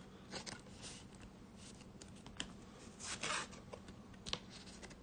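Yu-Gi-Oh trading cards being handled: soft rustles and scrapes of card stock against each other, with a few light clicks and a longer rustle about three seconds in.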